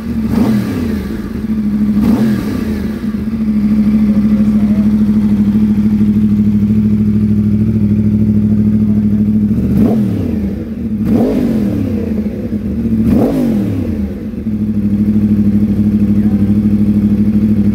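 2011 Yamaha R1 crossplane inline-four with a K-Factory titanium race exhaust idling, blipped five times: twice near the start and three times in quick succession in the middle, each rev rising and dropping back to a steady idle.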